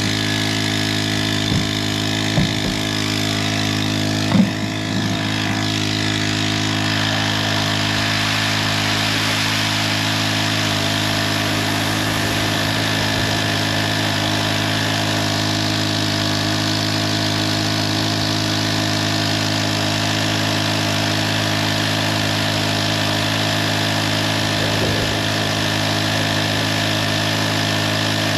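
Koshin SEV-25F four-stroke engine water pump running steadily at a constant speed, with a few brief knocks in the first few seconds.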